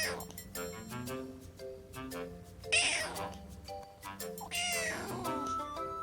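A domestic cat meowing twice over background music, about three seconds in and again about a second and a half later, the second call longer and falling in pitch.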